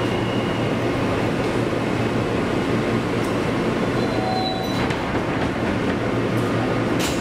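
R160 subway car heard from inside while it rides along: a steady rumble of wheels on rail with a low motor hum. A brief thin squeal comes about four seconds in, and a sharp click near the end.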